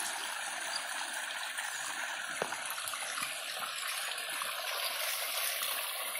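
Irrigation water running steadily to the jackfruit trees: a continuous trickling flow, with one short click about two and a half seconds in.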